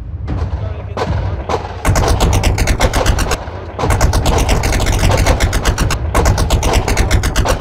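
Machine-gun fire sound effect: a couple of single shots, then long bursts of rapid shots over a low rumble, breaking off twice.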